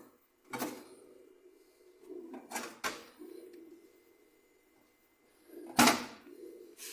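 Several knocks and clatters of things being handled, one shortly after the start, a pair around the middle, and the loudest about six seconds in.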